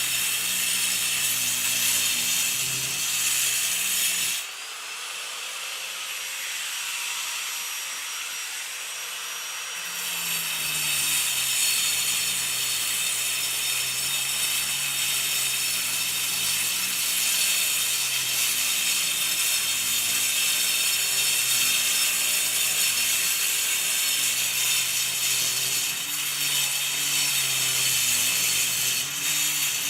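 Angle grinder cutting concrete, a steady harsh grinding. About four seconds in, the noise thins and drops in level for about five seconds, with the motor's whine rising as if the disc is out of the cut. It then bites back in and the full grinding resumes.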